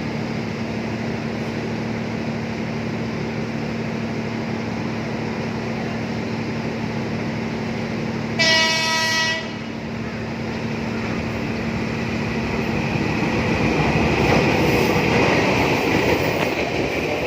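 Train running with a steady hum and rail noise. About eight seconds in, a train horn sounds one blast of about a second. The running noise then grows louder toward the end, as of a train passing close by.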